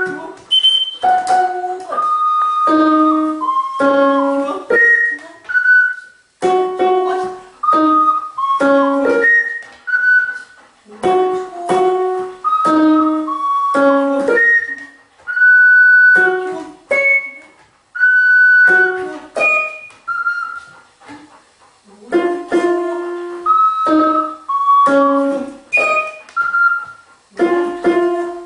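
Short melodic phrases of separate pitched notes from a large floor keyboard pressed by two golden retrievers' paws. These alternate with a few longer held high notes from the small wind instrument the woman plays at her mouth.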